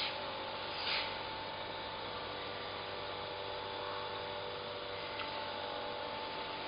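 Steady background hum and hiss, with a few faint constant tones, and a brief soft swish about a second in.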